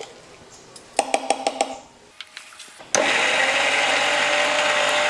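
A spoon knocks rapidly against a steel mixer-grinder jar, about six ringing clicks, followed by a few small clicks. About three seconds in, the mixer grinder starts suddenly and runs steadily with a high whine, grinding roasted masala with a little water into a smooth paste.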